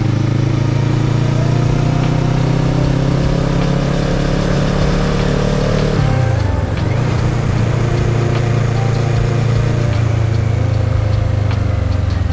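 Kawasaki ER-6n's 649 cc parallel-twin engine pulling steadily under way, its revs climbing slowly. About halfway through, the revs drop sharply and pick up again, and they fall away near the end. A steady rush of wind and road noise runs underneath.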